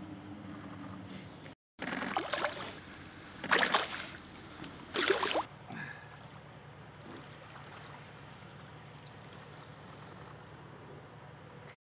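Water splashing in the shallows as a young elephant seal moves in toward the shore, in three short bursts about two, three and a half and five seconds in, over a low steady hum.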